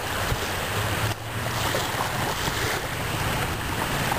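Small waves lapping and washing onto a sandy beach, with wind rumbling on the microphone.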